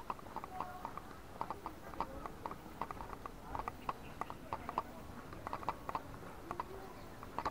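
Faint, irregular footsteps and clicks on stone paving, several light taps a second.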